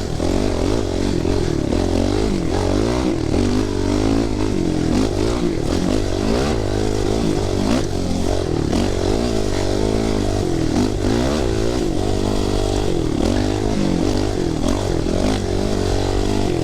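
Dirt bike engine under way on a trail, its pitch rising and falling again and again as the throttle is worked on and off.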